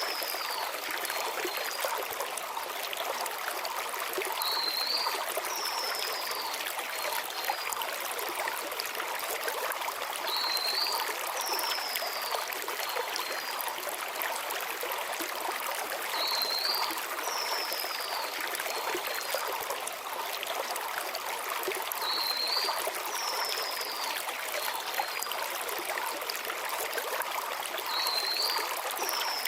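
Mountain stream flowing over stones, a steady rushing and trickling. A small bird's short high phrase, a quick rising and falling whistle with two small notes after it, repeats about every six seconds.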